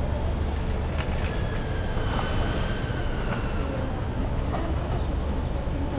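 Steady low rumble of heavy vehicle traffic, with a faint high whine that drifts slightly down in pitch through the middle.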